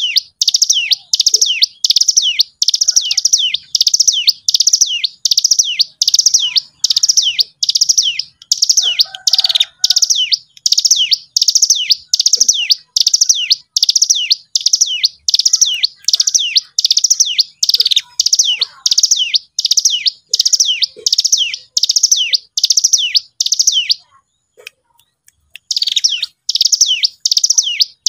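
Cigun (ciblek gunung, a prinia) calling non-stop: a fast run of high buzzy trilled notes, about two a second, each ending in a falling sweep. The calling breaks off for about two seconds near the end, then starts again.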